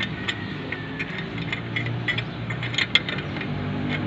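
Scattered metallic clicks and clinks of hand tools being handled on metal, with a sharp click about three seconds in, over a steady low hum.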